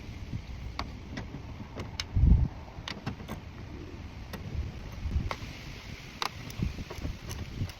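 Scattered sharp plastic clicks and light knocks from a car's interior door panel and its trim being worked loose by hand, with a loud dull thump about two seconds in.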